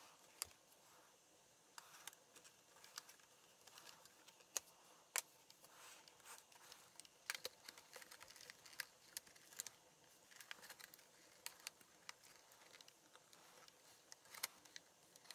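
Plastic case of an HP Pavilion laptop being pried apart by hand: scattered, irregular clicks and snaps as the clips between the top deck and the bottom case let go, with several sharp louder cracks among softer ticks.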